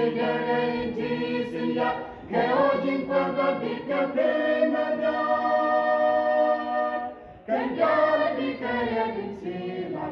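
Small mixed church choir singing a gospel hymn unaccompanied, in phrases with brief breaths between them, holding one long chord for about three seconds midway.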